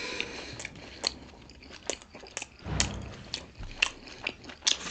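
Close-miked chewing of pork momo dumplings: wet mouth smacks and clicks at an irregular pace, with a louder bite about three seconds in.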